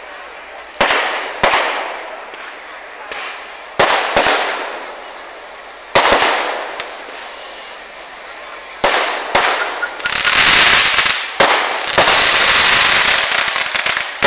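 Fireworks going off: single sharp bangs every second or two, each fading away, then from about ten seconds in, dense runs of rapid crackling bangs.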